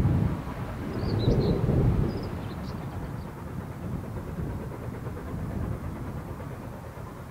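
Low rumble of a train going away, swelling once more about a second in and then dying down to a steady low background, with a small bird chirping briefly over it.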